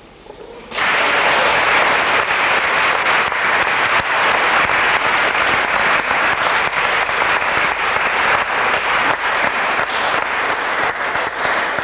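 A roomful of people applauding: the clapping starts suddenly about a second in and keeps on steadily.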